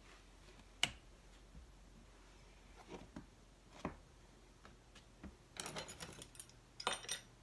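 Faint handling sounds on a clay work table as a clear plastic ruler and freshly cut clay strips are moved: a sharp tap about a second in, a few light knocks, then bursts of scraping and rustling near the end.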